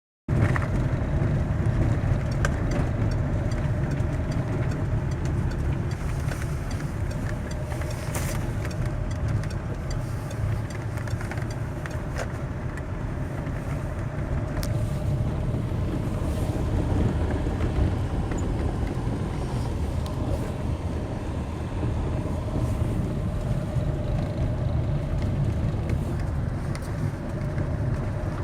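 Fiat Scudo van driving, a steady low rumble of road and engine noise with a few sharp clicks and knocks scattered through it.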